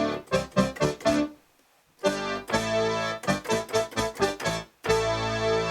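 Roland JX-3P analog polysynth with the Kiwi-3P upgrade playing its Synth Brass 2 preset: short brass-like chord stabs, a brief pause about a second and a half in, then more stabs and a long held chord near the end.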